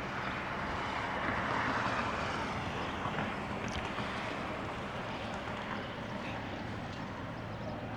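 Steady vehicle engine hum under a wind-like rushing noise that swells a second or so in and then eases.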